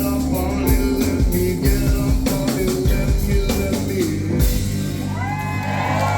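Rock band music with drum kit, bass and guitar. About four and a half seconds in, the drums stop, leaving a held bass under sliding high tones.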